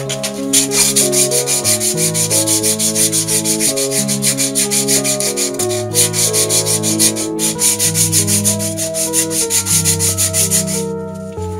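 A strip of torn sanding belt pulled rapidly back and forth around a wooden dowel, shoe-shine style, making a quick, even, rhythmic rasping. Background music of held chords plays underneath.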